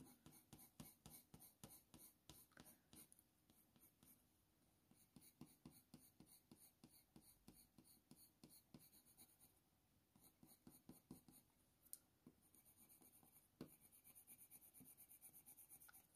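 Very faint scratching of a Faber-Castell Polychromos coloured pencil making short strokes on hot-press watercolour paper, with a quicker run of small strokes near the end.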